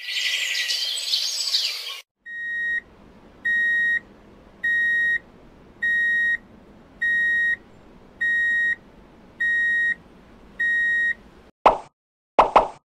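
A steady high electronic beep, repeated about eight times at even spacing of a little over a second. It is preceded by a two-second burst of hissy, high sound and followed near the end by a quick series of short pops.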